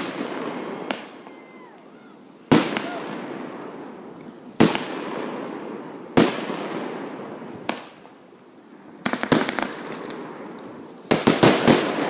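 Aerial fireworks bursting: about six sharp booms a second or two apart, each followed by a long rolling echo. Near the end come rapid volleys of crackling pops.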